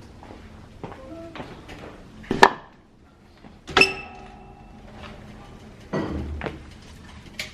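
Kitchenware being handled: two sharp knocks about a second and a half apart, the second with a brief ringing clink, then a duller knock a couple of seconds later.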